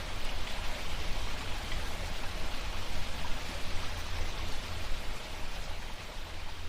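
Small, clear mountain stream flowing steadily, a continuous trickle of running water.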